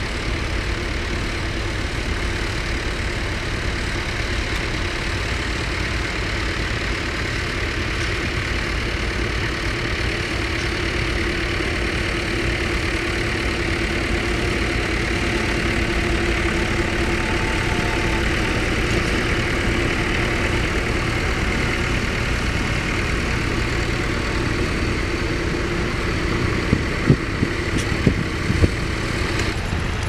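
Tractor engine running steadily as it pulls a plough across the field, its note growing louder toward the middle and then easing off. A few sharp knocks near the end.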